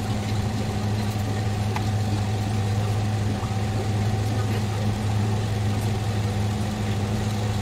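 A steady low mechanical hum, like a motor running, unchanging throughout, with a few faint clicks over it.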